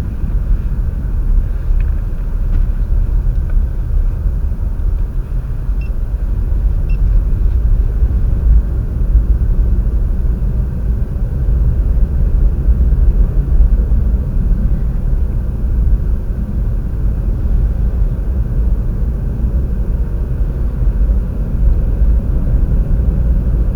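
High wind blowing across an open field and buffeting the microphone: a loud, steady low rumble that swells and eases with the gusts.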